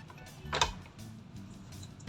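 Background music with a steady bass line, and one sharp plastic click about half a second in as the snap-fit back cover of the all-in-one PC is handled.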